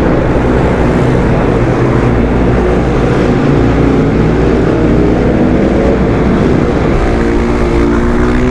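Supermoto motorcycle engine running hard under throttle as the bike pulls away carrying two riders, mixed with wind noise; the engine note changes about seven seconds in.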